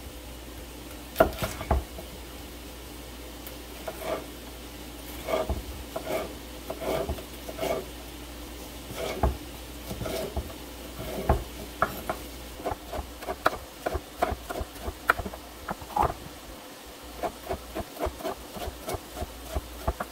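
Chef's knife slicing green bell peppers into strips on a wooden cutting board: a series of short knocks of the blade against the board. They are sparse at first and quicken to about two or three a second in the second half.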